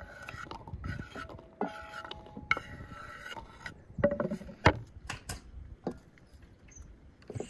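Kitchen knife scraping and tapping on a wooden cutting board as chopped garlic is pushed across it and into a wooden bowl, with a few sharp knocks about four to five seconds in. Near the end, fresh vegetables are handled on a tray.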